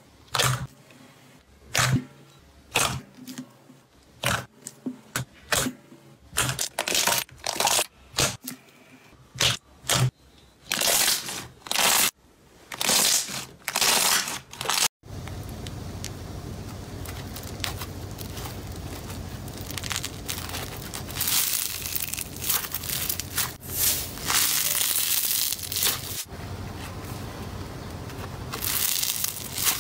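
Glossy pink slime being kneaded and pressed by hand in a bowl, giving sharp sticky pops about one or two a second. About halfway through it changes to a crunchy foam block being crushed in the hand, a continuous crackling with louder crunchy surges.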